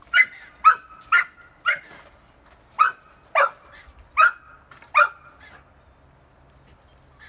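Young pit bull barking while hunting dassies (rock hyraxes) among cliff rocks: eight sharp barks, four at about two a second, a short pause, then four more, stopping about five seconds in.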